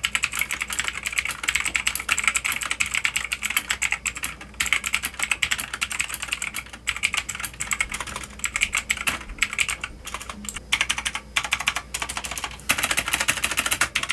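Fast typing on a Magegee MK Box Plus 65% mechanical keyboard with clicky, tactile Jixian switches: a dense run of key clicks, broken by brief pauses about four and a half and seven seconds in and thinning out for a few seconds past the middle.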